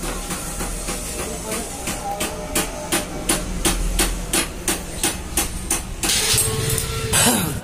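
Regular metallic clicking, about three clicks a second, from a socket wrench turning the clutch centre nut of a Bajaj CT motorcycle. Near the end comes a louder, longer stretch of metal scraping noise.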